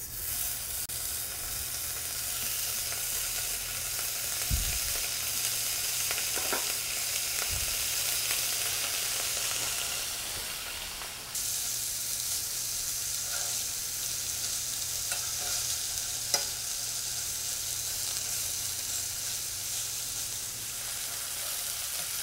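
Pork belly slices, seasoned with white pepper and salt, sizzling as they fry in a hot nonstick frying pan. The sizzle starts as the slices go into the pan. A few light clicks come from tongs in the pan.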